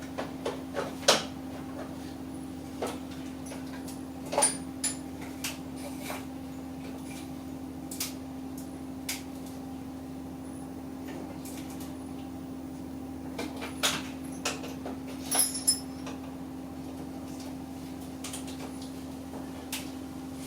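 Irregular clicks and metallic clinks of drill bits being handled and a drill being changed in a milling machine's chuck, over a steady low hum.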